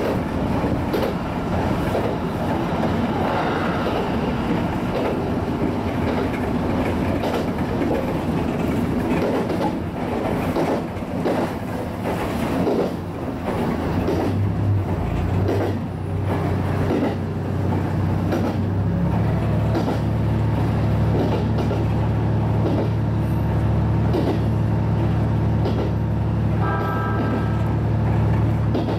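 HB-E210 series hybrid diesel railcar running along the line, heard from the cab, its wheels clicking over rail joints. About halfway through a steady low drone sets in, the diesel engine running, and it grows stronger and holds to the end.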